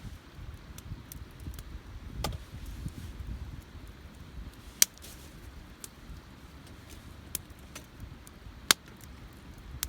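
Wood campfire crackling, with scattered sharp pops, two of them loud, midway and again near the end, over a low rumble.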